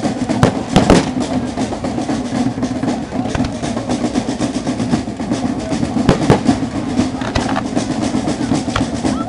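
Fireworks going off in a display: dense, rapid crackling with several louder sharp bangs, the strongest about a second in and around six seconds in.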